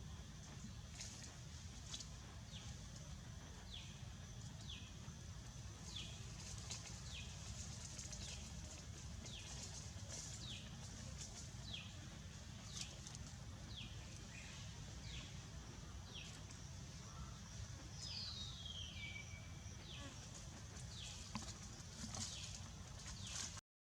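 An animal's short, high calls, each falling in pitch, repeated about once a second, with one longer falling call about eighteen seconds in, over a steady low rumble.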